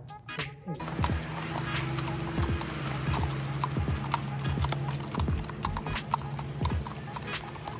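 Two horses walking on a packed dirt and gravel lot, their hooves clip-clopping in an uneven rhythm. Music cuts off just under a second in, and a low steady hum runs under the hoofbeats until about five seconds in.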